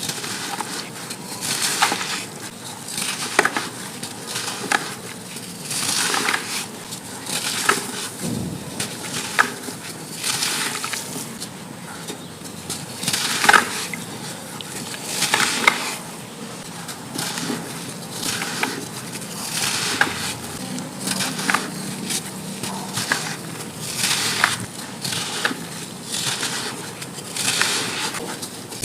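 Chunks of compacted sand crumbling and crunching, one gritty crunch after another every second or two with fine crackles in between.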